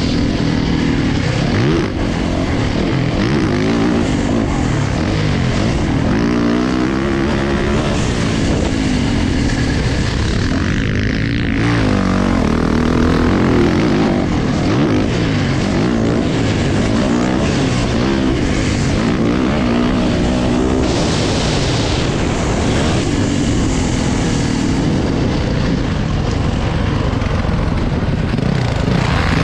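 Dirt bike engine being ridden hard, heard from on the bike, its pitch rising and falling over and over as the throttle is opened and closed through the track's jumps and turns.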